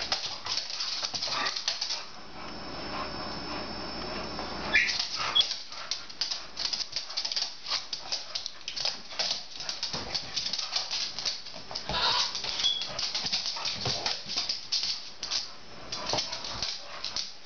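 Two bulldogs play-fighting: rapid, irregular scrabbling and clicking of claws and paws on the floor, with a couple of brief high whines.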